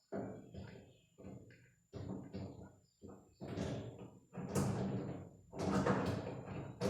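A series of knocks and clunks from a headlight bucket being handled, plugged in and pushed into place in the front fender, the later ones louder.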